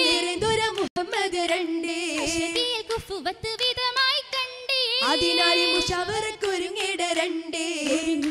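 High voices singing an Oppana (Mappila) song in a melismatic, ornamented line, with sharp hand-claps keeping the rhythm.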